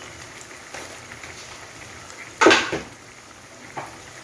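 Kitchen utensils clattering against a cooking pot while spices go into the curry masala: one loud clatter about two and a half seconds in, with a few light taps around it.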